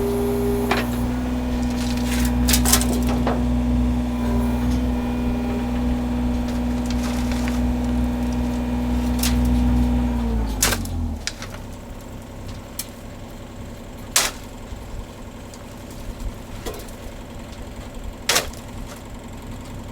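A machine engine running at a steady speed is shut off about ten seconds in and winds down over about a second. After that come a few scattered clicks and knocks.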